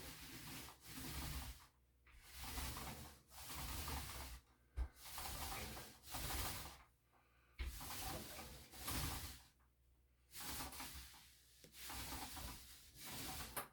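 Primer being spread on a drywall wall in about ten back-and-forth strokes, each a rubbing hiss lasting about a second with short pauses between.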